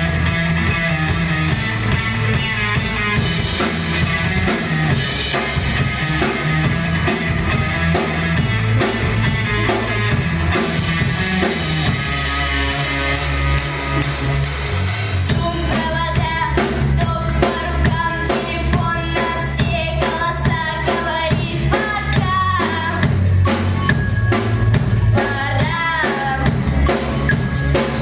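Rock song with a steady drum kit beat, bass and guitar; a voice comes in singing about halfway through.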